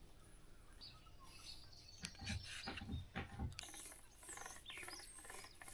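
Faint scraping and clicking, with a run of quick rasping strokes in the second half, as auto body filler is worked with a spreader.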